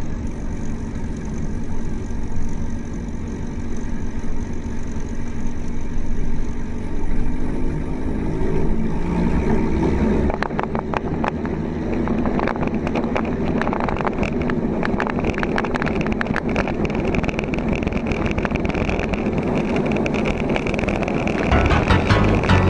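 Single-engine Cessna's piston engine and propeller running, throttled up to takeoff power about eight to ten seconds in, the pitch gliding upward. From about ten seconds on, wind crackles and buffets on the outside-mounted camera's microphone as the plane speeds down the runway.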